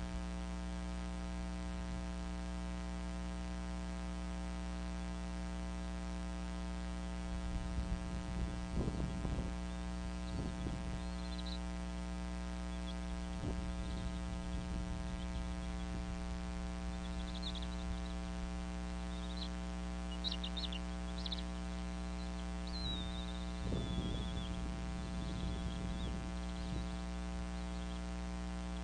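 A steady electrical hum from the nest-cam audio, with bursts of stick-and-feather rustling as bald eagles shift about in the nest a few times. A few brief high bird chirps come through, one of them falling in pitch.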